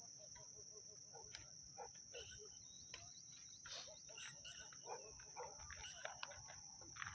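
A faint, steady, high-pitched insect trill, with scattered short chirps and calls.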